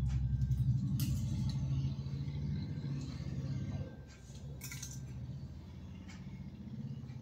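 A steady low hum that drops in level about four seconds in, with a few light clicks and clinks, including a steel tumbler being picked up to drink water.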